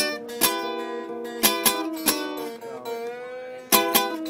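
Nylon-string classical guitar strummed, with chords struck about half a second, a second and a half, and two seconds in, then ringing out. Near the end comes a quick pair of chord strokes.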